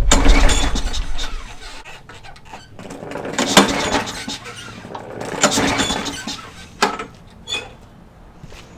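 Small lawnmower engine dying away, the sign of an engine that runs only on a shot of starting fluid and is not getting fuel from a clogged carburetor. It is followed by two short rushing, hissing swells and a couple of sharp clicks.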